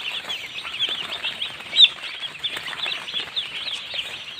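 A flock of broiler chickens peeping: many short, high chirps overlapping without a break, one louder chirp a little under two seconds in.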